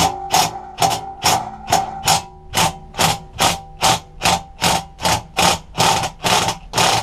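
DeWalt 18V cordless impact driver hammering at a bolt that has not been undone for a very long time: a steady motor whine under evenly spaced hard knocks, about two to three a second.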